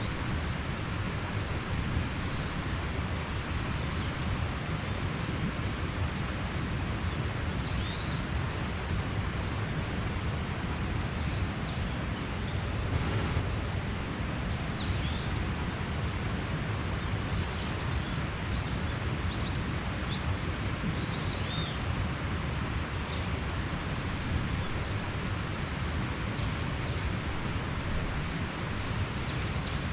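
Mountain stream rushing steadily, with small birds chirping over it in short, curved calls every second or two.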